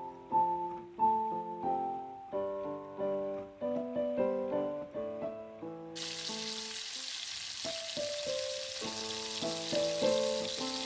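Background music with plucked and keyboard-like notes; about halfway through, a loud, steady sizzle starts as diced potatoes fry in hot oil in a stainless steel pot.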